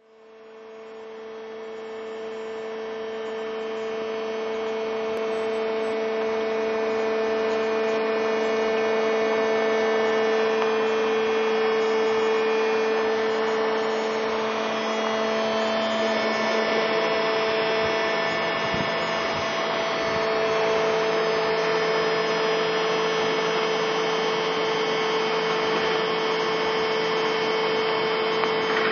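Lift bridge's raising machinery humming steadily as the deck is raised, fading in over the first few seconds. The hum wavers and dips a little over halfway through, then steadies again.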